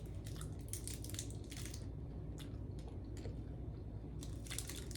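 A person biting into and chewing a piece of gum, with faint wet mouth clicks in short clusters.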